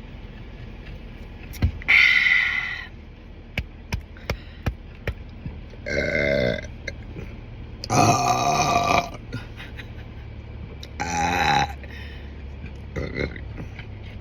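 A man burping five times in a row, gas brought up by a soda, the longest burp lasting about a second near the middle. A quick run of short sharp clicks falls between the first and second burps.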